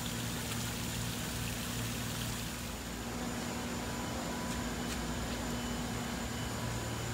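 Water splashing from a tiered outdoor fountain, an even wash of noise over a steady low mechanical hum.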